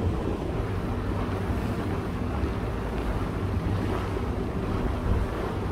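Water taxi under way: a steady low engine drone with water rushing along the hull and wind buffeting the microphone.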